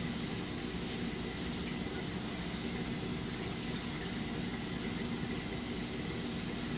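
Steady noise of aquarium equipment: a constant rush of circulating water with a low hum from the pumps.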